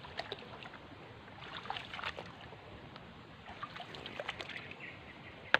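Light, irregular splashing and trickling of swamp water, with a sharp click near the end.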